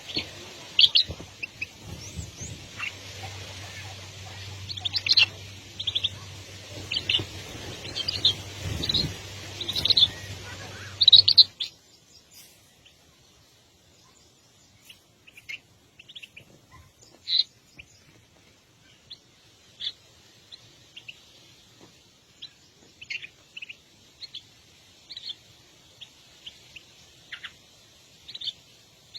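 Small birds chirping: many short, high chirps repeated. A steady low hum and background noise under them stop abruptly about a third of the way in, and fainter, more scattered chirps go on.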